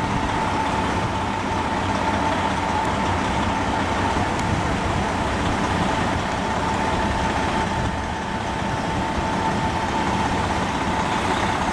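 Diesel engine of a stopped semi-truck idling steadily, with a constant whine running through it.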